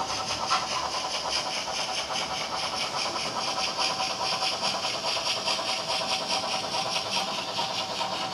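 Model train, a Fleischmann BR 94 tank locomotive hauling a string of tank wagons, running along the track: a steady motor whir with even, rapid clicking from wheels on the rails.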